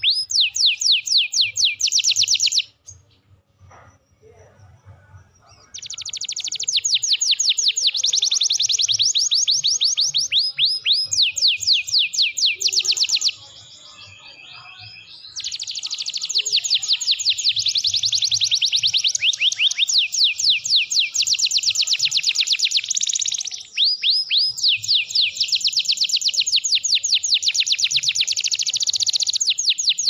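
Domestic canary singing fast, loud runs of high trilled notes, many per second. The song breaks off about three seconds in and again near the middle, then goes on.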